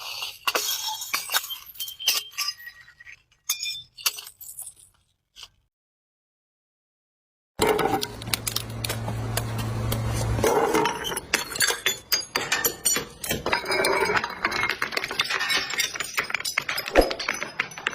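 Glass bottles breaking and being crushed: sharp clinks and cracks of glass with tinkling shards. A silent gap of about two seconds comes a third of the way in. After it the crunching and cracking is denser, with a low hum for the first few seconds.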